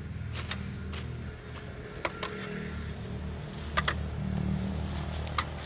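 Mattock blade chopping into packed soil and silage waste, a handful of sharp strikes at irregular intervals, over a steady low machine hum.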